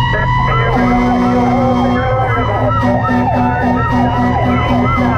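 Several fire engine sirens sounding together: one long, slowly rising wail, with a warbling siren repeating about twice a second over it. A low horn-like tone starts about a second in, then pulses about twice a second.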